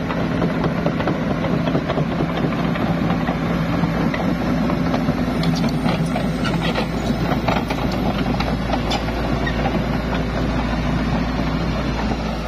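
Sumitomo SH210-5 excavator's diesel engine running steadily, a low hum with a few light ticks scattered over it.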